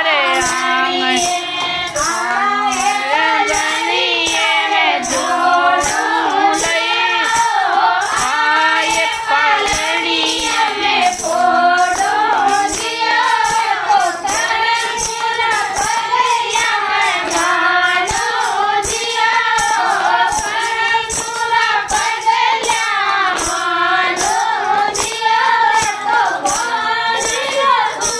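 Women singing a Marwari devotional bhajan together in a group, over a steady beat of hand claps.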